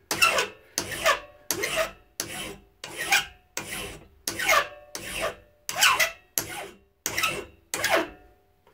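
Flat hand file scraping across the corners of a metal hex nut held in a bench vise: about a dozen quick back-and-forth strokes, each a short rasp, rounding the nut's corners off. The strokes stop shortly before the end.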